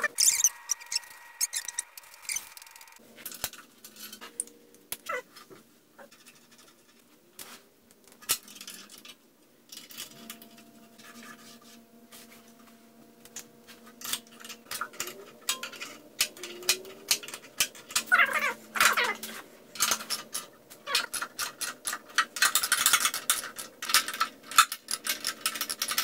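Clinks, taps and clatter of metal hand tools and saw parts as a cast-iron table saw is reassembled, with dense rapid clicking near the end. A few short wavering squeals come in between.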